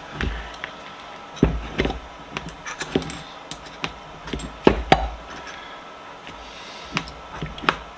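Hand tools and vise parts handled at a workbench: a scattered, irregular series of short knocks and clicks.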